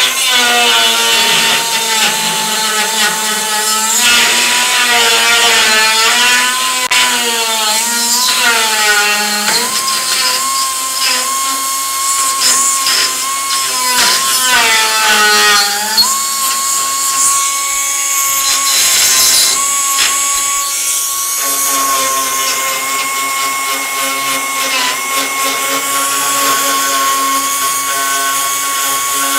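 Pneumatic die grinder running at high speed while grinding rusty sheet metal: a loud, high whine that wavers and dips in pitch as the bit bears into the metal through the first half, then holds steadier, with one brief dip later on.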